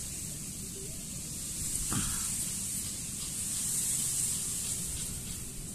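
Outdoor field ambience at a rice paddy: a steady high-pitched hiss that swells a little and fades, with a single faint tap about two seconds in.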